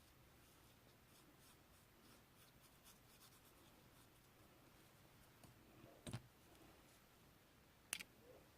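Slime being handled and squished by hand: faint scattered clicks, then two louder, sharp crackles about six and eight seconds in.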